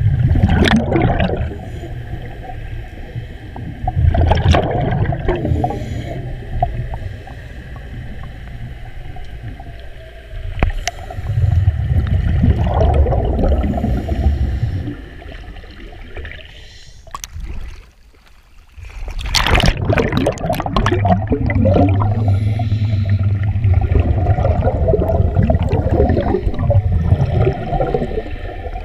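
Scuba divers' exhaled bubbles gurgling out of their regulators, heard underwater through the camera housing. The bubbling comes in bursts a few seconds long: at the start, about four seconds in, around twelve seconds in, then a longer stretch from about nineteen seconds on, after a brief lull.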